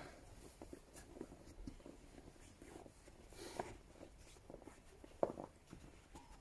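Scattered crunching and scraping of snow, with a louder scrape about three and a half seconds in and a sharp knock a little after five seconds.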